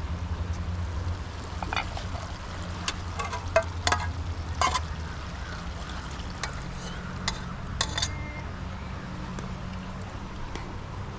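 A utensil knocking and clinking against a cooking pot as its contents are stirred: a scatter of short sharp clicks, thickest around the middle, one ringing briefly near the end. Under it runs a steady low rumble.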